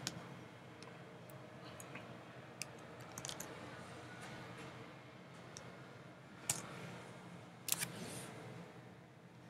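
Scattered computer keyboard and mouse clicks: a few single clicks and a short cluster of keystrokes, the two loudest coming about six and a half and nearly eight seconds in, over a faint steady hum.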